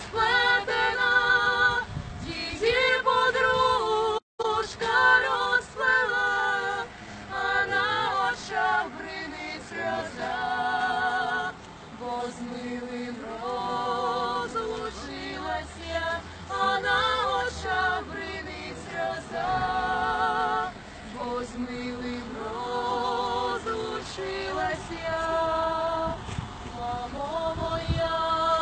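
Three women singing a lullaby a cappella, in long phrases of held notes with vibrato. The sound drops out for a moment about four seconds in.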